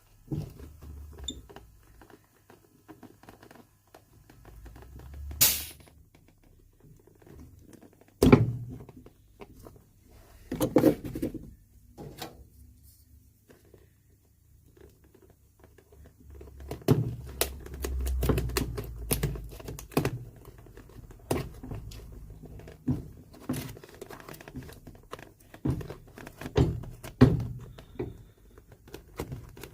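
Hand tools working on a leather-soled golf shoe: irregular knocks, thunks and short scrapes as the sole is cut and prised away from the welt, the sharpest knock about eight seconds in.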